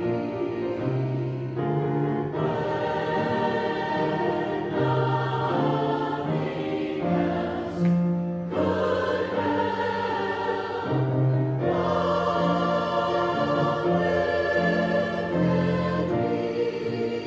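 A choir singing a slow hymn in harmony, with sustained chords that change every second or two.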